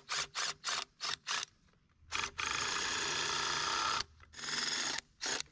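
Cordless drill driving a screw through a board into a log: several short trigger bursts, then a steady run of about a second and a half, then a shorter run and a brief blip near the end.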